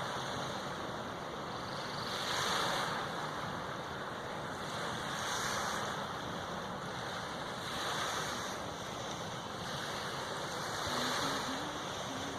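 Strong wind rushing steadily, swelling in gusts every two to three seconds.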